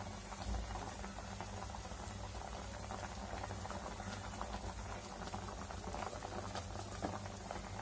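Pot of water at a rolling boil with whole raw plantains in it, bubbling steadily.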